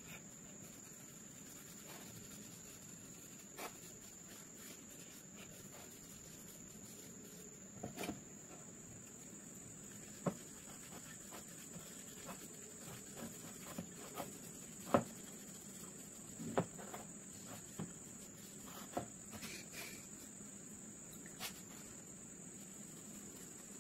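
Light scattered knocks and taps of wooden rifle stock pieces being handled and set down on a workbench while finish is rubbed into the wood with a cloth, over a steady high-pitched tone. The sharpest knock comes about halfway through.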